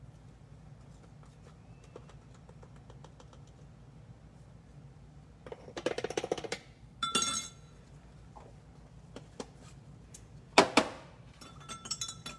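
Metal spoon and glass jars clinking as dye powder is mixed into water: a short rattle, a sharp ringing clink, a louder knock, then a quick run of light ringing clinks of a spoon stirring in a glass cup.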